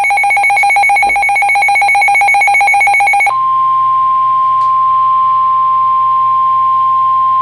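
An emergency alert tone: a rapidly pulsing, trilling tone for about three seconds, then the NOAA Weather Radio warning alarm tone, one steady high tone. It signals that a severe weather warning is about to be broadcast.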